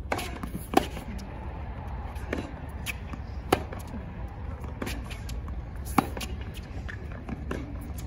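Tennis rally: racket strikes on the ball traded back and forth, about one every second and a quarter, the near player's shots the loudest.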